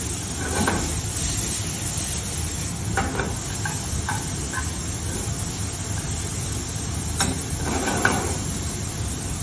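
Thinly shaved beef sizzling in a hot sauté pan as it cooks. Now and then a utensil scrapes and clicks against the pan while the meat is broken up.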